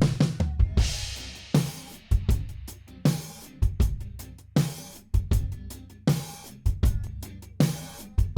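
Recorded drum kit playing a steady groove: kick and snare hits about twice a second over hi-hat, with a cymbal wash about a second in.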